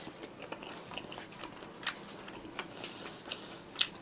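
A person chewing a mouthful of food close to the microphone: soft wet mouth clicks and smacks, with two sharper clicks about two seconds in and near the end.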